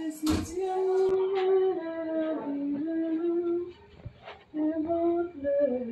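A woman singing a gospel hymn unaccompanied in long, held notes, with a short pause about two-thirds of the way through. There is a thump just as the singing begins.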